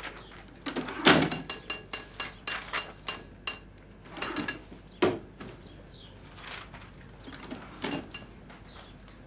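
A loud knock about a second in, followed by a quick run of sharp clicks, about five a second, for two seconds, then a few separate knocks.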